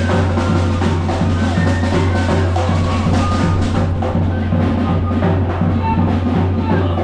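Background music with a steady drum beat and a constant bass line.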